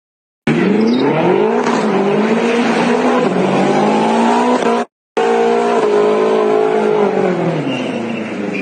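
Car engine accelerating hard, its pitch climbing steadily for about four seconds; after a brief cutout about five seconds in, it runs on and its pitch falls as it slows.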